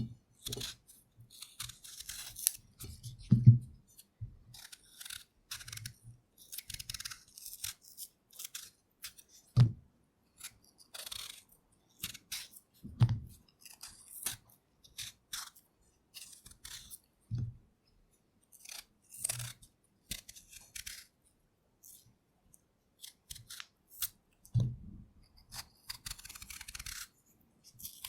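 Potatoes being peeled with a knife: short, irregular scraping strokes of the blade through the skin, with occasional dull knocks every few seconds.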